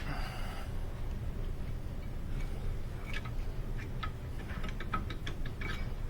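A series of irregular light clicks and clinks from about halfway through, typical of metal hand tools and brake parts being handled, over a steady low hum.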